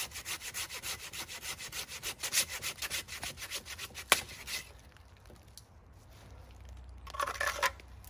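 Curved pruning hand saw cutting through a thick woody vine in fast, even back-and-forth strokes. The strokes stop about four and a half seconds in, just after a single sharp crack, and a brief scraping noise follows near the end.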